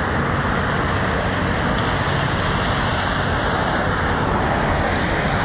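Steady rush of road traffic with a low engine hum underneath.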